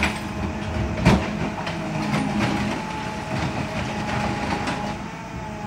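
Rear-loading garbage truck's compactor running: a steady mechanical hum under irregular crunching and clattering as the packer blade sweeps through the hopper and crushes household junk, with one sharp crack about a second in.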